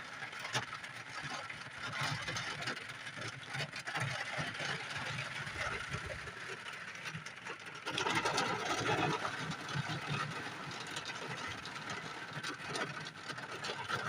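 Heavy rain coming down in buckets in a sudden downpour: a steady hiss of countless small drops, heavier for a stretch about eight seconds in.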